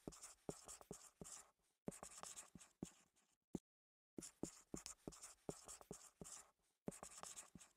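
Faint marker writing on a whiteboard: runs of quick strokes broken by short pauses, with a brief silence about halfway through.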